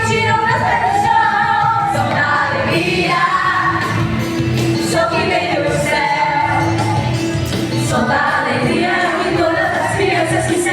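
A pop song with female singing over a steady beat.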